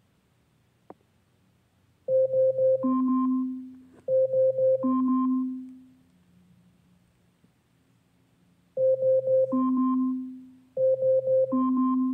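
Amazon Echo smart speaker sounding its alarm, an electronic chime phrase of three quick notes, a higher note and a low note that fades away. The phrase plays twice about two seconds apart, then twice more after a pause.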